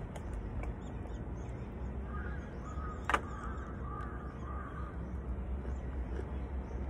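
Birds calling in the trees: a few lower calls between about two and four and a half seconds in, and faint high chirps throughout. A single sharp click comes about three seconds in, and a steady low rumble runs underneath.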